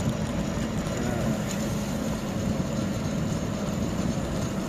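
Steady wind buffeting the microphone of a camera riding along a road, a continuous low rumbling rush with no distinct events.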